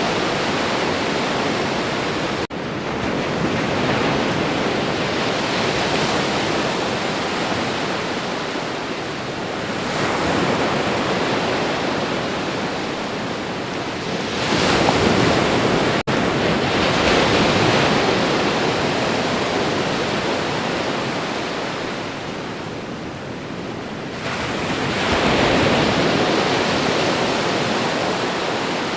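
Sea waves breaking on a shore: a continuous surf wash that swells loudly every few seconds as each wave comes in and then ebbs. The sound cuts out for an instant twice.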